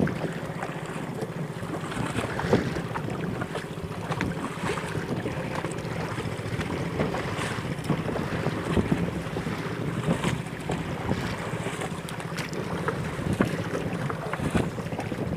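Wind buffeting the microphone over choppy sea, with water slapping the hull of a small wooden boat as it is paddled, and scattered short splashes and knocks.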